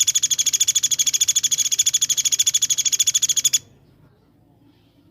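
A songbird's rapid 'tembakan' trill: a fast, even train of high, piercing notes repeated many times a second, which stops abruptly about three and a half seconds in.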